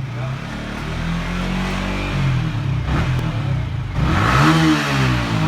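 Yamaha MT motorcycle engine revved up and back down twice, its pitch rising and falling each time, the second rev the louder.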